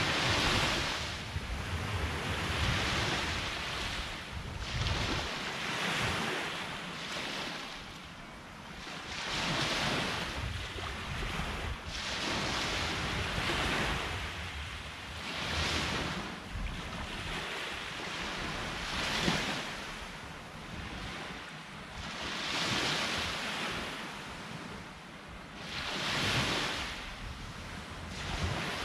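Sea waves breaking on the shore, each wash of surf swelling and fading again about every three seconds. Wind rumbles on the microphone underneath.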